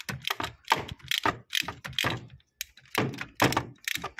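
Ratchet wrench on a long spark plug socket and extension working a spark plug loose: sharp clicks, several a second, in uneven runs.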